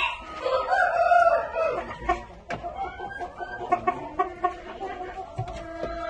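Penned Shamo chickens: a rooster crows once, a loud call about a second and a half long near the start, followed by softer clucking and scattered short clicks.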